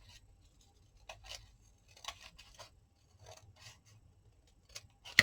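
Scissors cutting card: a series of small, quiet, irregular snips as a tag edge is trimmed.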